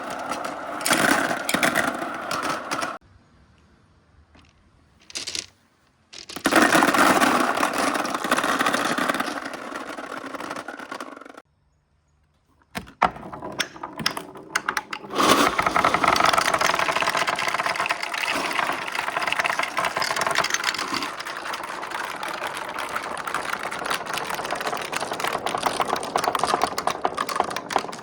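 Glass marbles rolling and clattering down a plastic marble run track, a dense rattling of many small knocks, broken by two brief silences around 3 and 12 seconds in.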